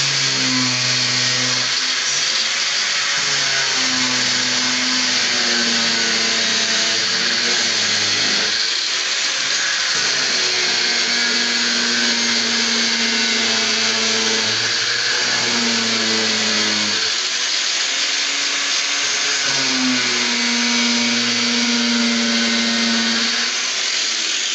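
Black+Decker angle grinder running continuously while its cutting disc cuts through a sheet of plexiglass (acrylic), giving a loud, steady grinding whine. The motor's pitch shifts up and down several times as the disc is worked along the cut.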